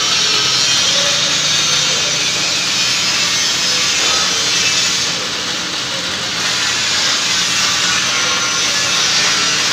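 Electric welding arc from a machine-mounted torch on steel, crackling steadily with spatter, easing slightly about five seconds in, over a low steady hum.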